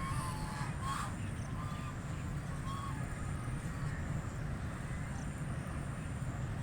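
A few short, scattered quacks from white Pekin ducks, the strongest near the start and about a second in, with fainter ones later, over a steady low rumble.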